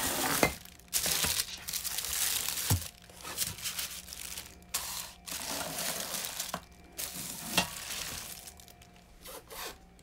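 Thin plastic bags crinkling and rustling on and off as plastic-wrapped ceiling-fan parts are handled and set down, with a few light knocks. It gets quieter near the end.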